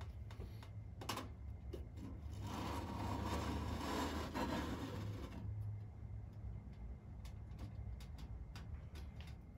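Toaster oven used for solder reflow being opened, with a few sharp clicks and then about three seconds of metal sliding and scraping as its wire rack is pulled out. A low steady hum runs underneath.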